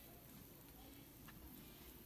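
Near silence: room tone, with one faint tick a little over a second in.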